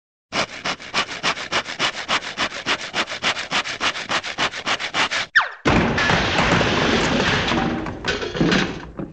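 Cartoon 'saw through the floor' sound effect: rapid hand-saw strokes through wood, about seven a second for some five seconds, then a quick falling whistle as the cut-out piece drops, and a long crash on landing with a second burst near the end.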